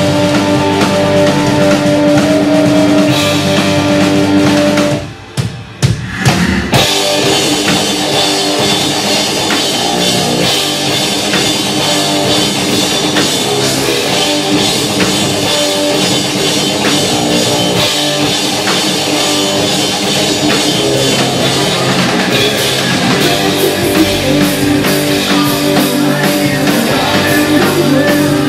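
Live punk/hardcore rock band playing: electric guitars, bass guitar and drum kit together, loud. About five seconds in the band drops out briefly with a few sharp hits, then comes back in at full volume.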